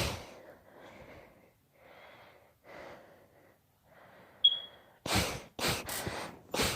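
A girl breathing hard during a sneeze fit: a sharp burst of breath, a run of softer gasping, sniffing breaths, and a brief high squeak about four and a half seconds in. Four quick, louder bursts of breath follow near the end.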